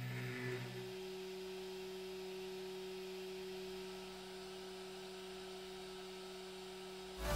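Faint steady electrical hum of a Prusa i3-style RepRap 3D printer while it prints, with two steady tones. A lower tone drops out about a second in. Electronic music comes in at the very end.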